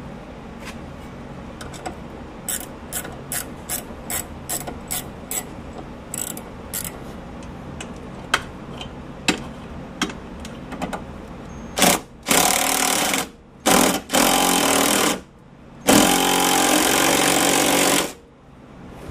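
A cordless impact wrench hammers in four bursts, the last and longest about two seconds, running down the sway bar end link nut. Before that come light metallic clicks of a hand wrench on the nut, about two or three a second.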